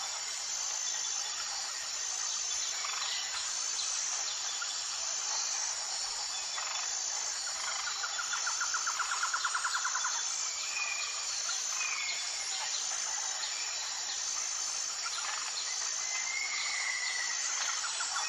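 Tropical jungle ambience: a steady high-pitched insect drone with a regular pulsing chirp throughout, and birds calling over it. A fast trill about halfway through is the loudest part, and several short whistled bird calls follow.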